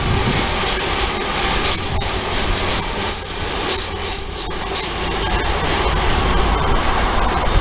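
A train moving through the station at platform level: a steady rumble of wheels on rails, with a run of short, high-pitched clicks and squeaks over the first few seconds, settling into a smoother running noise.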